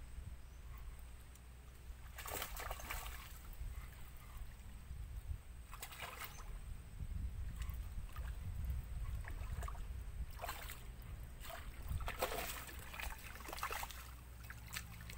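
Water sloshing and splashing in short bursts, over a steady low rumble.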